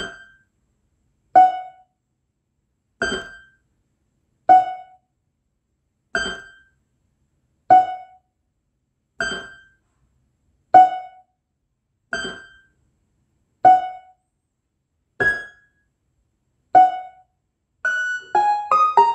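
Electronic keyboard ("organ") improvising a rain imitation: single short plinking notes about every second and a half, alternating between a higher and a lower note like falling raindrops. Near the end the notes quicken into a rapid patter of many notes at different pitches.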